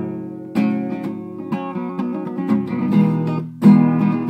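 Acoustic guitar strummed, its chords ringing between strokes, with a stronger strum near the end.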